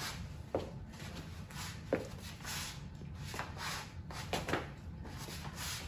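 Quiet room tone with faint rustling and shuffling and a couple of soft knocks.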